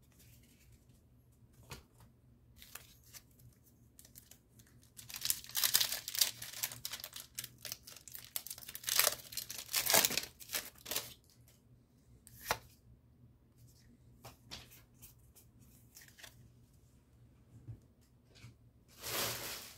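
Foil Pokémon TCG booster pack wrapper being torn open and crinkled. Tearing and rustling come in bursts: a long run in the middle, a short one, then a loud burst near the end, with quiet stretches between.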